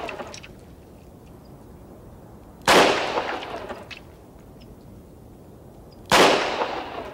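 Two revolver shots about three and a half seconds apart, each sharp crack followed by an echo that fades over about a second.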